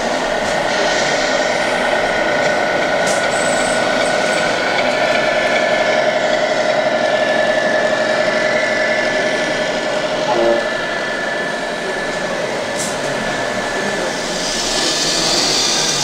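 Radio-controlled scale model trucks driving close by: a steady, whining mechanical running sound with several held pitches, and a short tone about ten seconds in.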